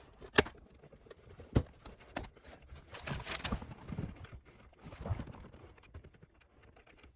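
Hand tools and loose parts knocking and clattering: two sharp knocks in the first two seconds, then a longer rattling clatter about three seconds in and a shorter one near five seconds.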